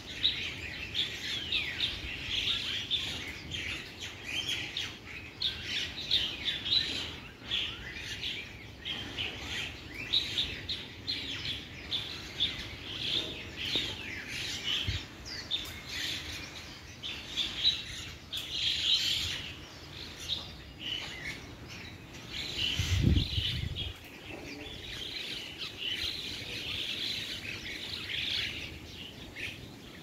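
Birds chirping, a dense run of short, high, overlapping chirps and calls with no pauses. A brief low thump comes about three quarters of the way through.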